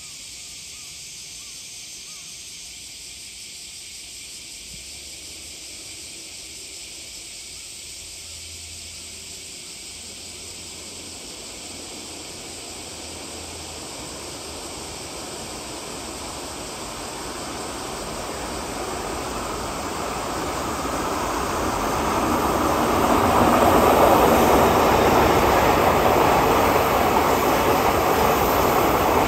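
Freight train hauled by an EF81 electric locomotive approaching and passing: the rumble of its wheels on the rails grows steadily louder and, from about two-thirds of the way in, holds steady as the container wagons roll by.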